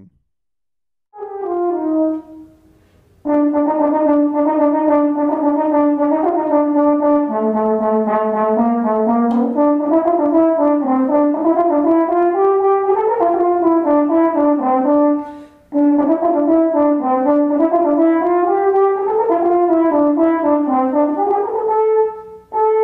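A French horn playing an unaccompanied melody, one note at a time: a short phrase about a second in, then a long flowing tune with a brief break about two-thirds of the way through.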